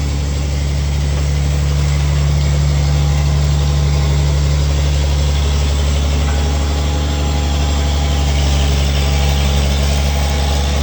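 Backhoe's diesel engine running steadily with a deep, even drone, growing a little louder about two seconds in.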